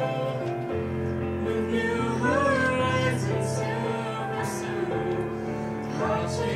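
Two young singers, a boy and a girl, singing a duet ballad with held, wavering notes over instrumental accompaniment.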